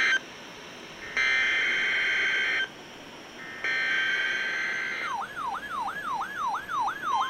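NOAA Weather Radio SAME header data bursts: harsh, buzzy digital screeches of about a second and a half each, two of them a second apart, closing the three-burst header of a required weekly test. Then, about five seconds in, a weather alert receiver's siren-like alarm starts, sweeping up and down about four times a second, and near the end a steady single tone joins it.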